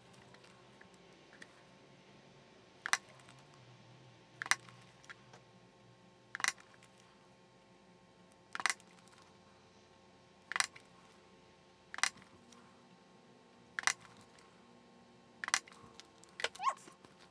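Rotary hand hole punch snapping through embroidered vinyl to make rivet holes: about eight short, sharp clicks, one every second and a half to two seconds.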